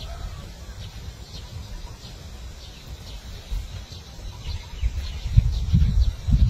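Low rumbling outdoor noise that grows louder near the end, with faint high bird chirps scattered through it.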